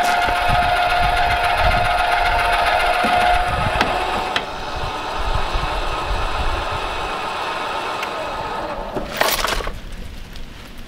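Electric tongue jack's motor running with a steady geared whine as it retracts, lowering the trailer tongue onto jack stands. It stops about nine and a half seconds in, followed by a brief clatter.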